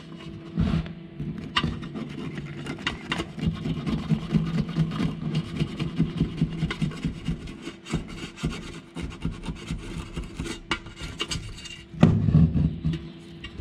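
Frayed end of a steel wire cable, used as a homemade wire brush, scrubbing the jets and passages of a 90 cc scooter carburetor: rapid, scratchy rubbing of wire on metal.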